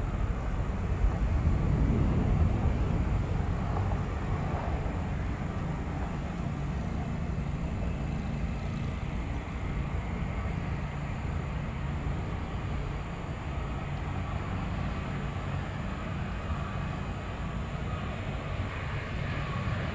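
Airliner engines running with a steady low rumble, loudest about two seconds in and then holding even, with a faint whine above it.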